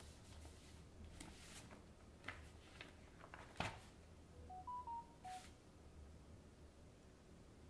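Faint clicks and rustling, the sharpest click about three and a half seconds in, then a quick run of five short electronic beeps at stepped pitches.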